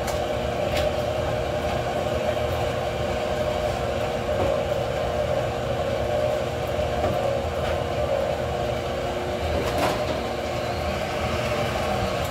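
Electric stand mixer running steadily with a constant hum as it beats the salad dressing in its bowl, switching off right at the end.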